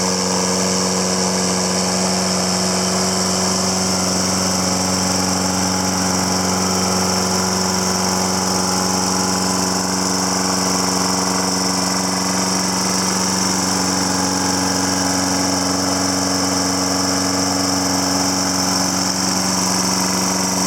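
2008 Toro Personal Pace lawn mower's 6.75 gross torque Briggs & Stratton single-cylinder engine running steadily at an even speed.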